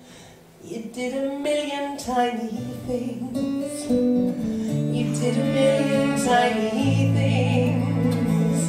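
Acoustic guitar plucked and strummed while a cello bows long held low notes underneath. The playing starts softly and fills out over the first couple of seconds.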